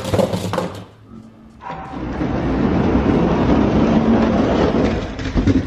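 Hot Wheels die-cast monster trucks rolling down an orange plastic track, a rattling rumble. It drops away about a second in and starts again soon after.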